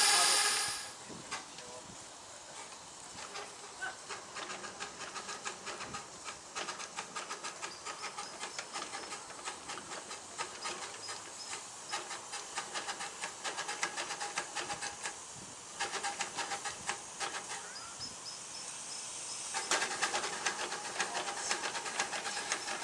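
Miniature steam locomotive standing in steam, hissing steadily with rapid irregular ticking throughout; the hiss grows louder near the end. A loud, high, steady whine cuts off within the first second.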